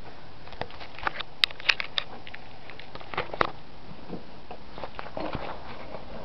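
Irregular light clicks, taps and scuffs of a handheld camera being moved and handled, with a cluster of sharper clicks about a second and a half in and another near the middle.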